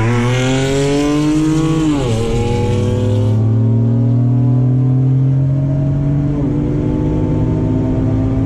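Stage-4 tuned VW Up TSI's turbocharged three-cylinder engine at full throttle from a standing start, heard from inside the cabin. The pitch climbs, drops at an upshift about two seconds in, climbs again for about four seconds, drops at a second upshift a little past six seconds, then rises again.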